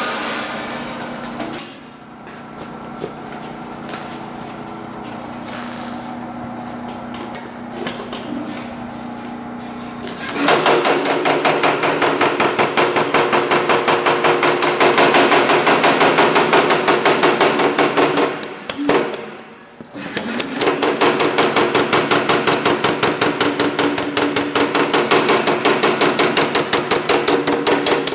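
Baileigh MH-37HD power hammer, run by a 5-horsepower motor on a VFD foot pedal, shrinking a sheet-metal panel with a rapid, even run of blows, several a second, held at a controlled speed. For about the first ten seconds there is only a steady machine hum. The hammering stops for about two seconds a little past halfway, then resumes.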